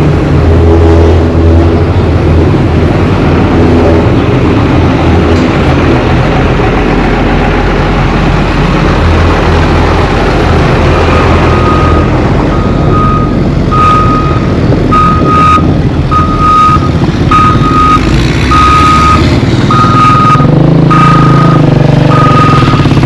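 Heavy road-construction machinery running with a loud, steady engine rumble. About halfway through, a reverse alarm starts beeping about once a second as a machine backs up.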